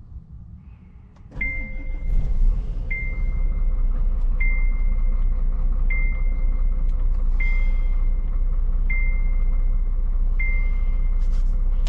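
Scania S 680's 16-litre V8 diesel, heard from inside the cab, starting about a second in, rising briefly, then settling into a steady idle. A dashboard warning chime starts with it and repeats about every one and a half seconds.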